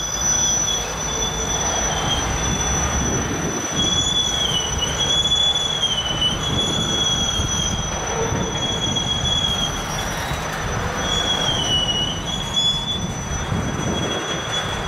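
Rail train of flatcars loaded with welded rail rolling past, its wheels squealing in two steady high tones that now and then dip and recover, over a continuous low rumble. Wind buffets the microphone.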